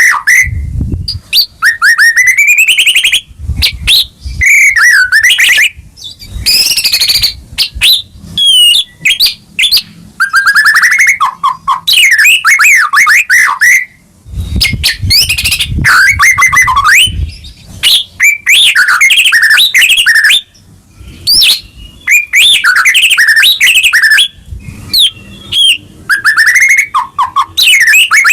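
White-rumped shama (murai batu) in full, loud song: a run of varied phrases of sweeping whistles and rapid trills, each lasting a second or two, with short breaks between them. Occasional low rumbles sound underneath.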